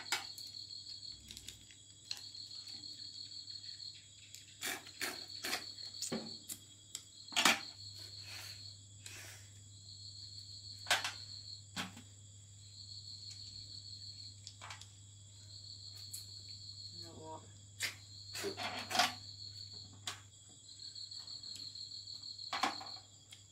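An insect trilling in repeated high bursts about a second and a half long, roughly every two seconds, with scattered sharp clicks and knocks.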